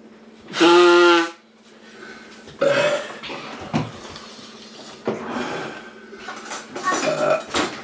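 A man blowing his nose hard into a tissue: one loud, honking blow lasting under a second, his nose running from the burn of superhot chili peppers. Quieter breaths and mouth noises follow.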